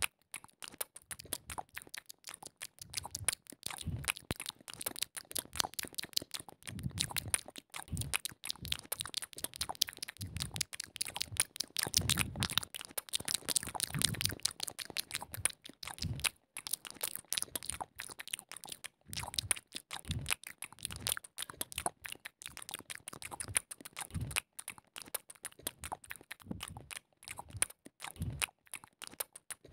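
Hawk-moth caterpillar chewing oleander leaves and petals, heard close up as a dense, irregular run of tiny crunching clicks.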